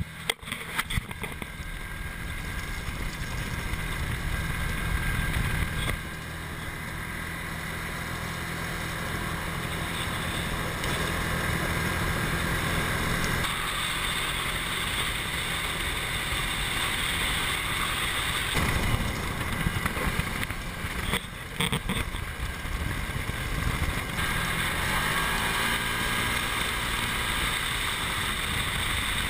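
Side-by-side UTV driving along a gravel trail: engine running steadily under road and tyre noise, with a few knocks about two-thirds of the way in.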